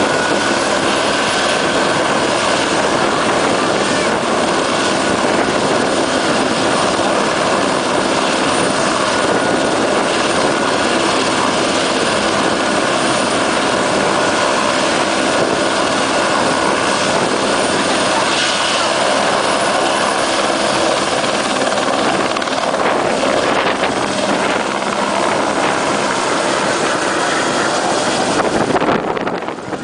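Eurocopter AS350 Squirrel helicopter running at flight speed on the pad: a steady turbine whine over dense rotor and engine noise. Near the end it lifts off and climbs away close by, and the sound dips and wavers.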